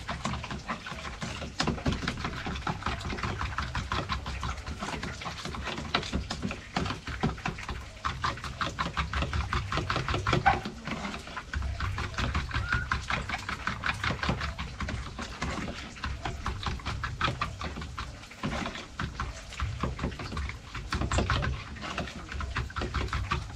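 Food being mixed in a bowl: quick, irregular, repeated wet strokes with a couple of short pauses.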